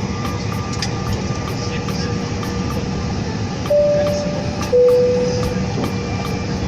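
Steady drone of an airliner cabin, with a two-note high-then-low chime sounding about four seconds in.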